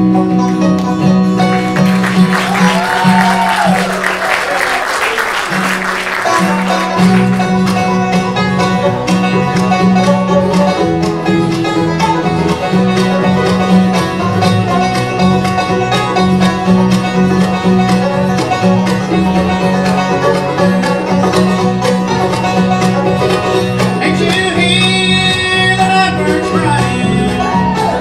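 Bluegrass music: banjo and guitar picking over a steady bass.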